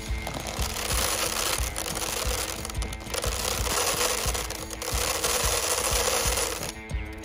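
Dry grain seed poured into a clear plastic bowl: a continuous pattering hiss of many small seeds hitting the plastic, which stops about a second before the end.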